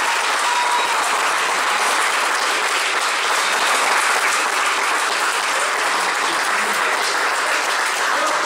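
A large crowd of children and adults applauding, with steady, dense clapping.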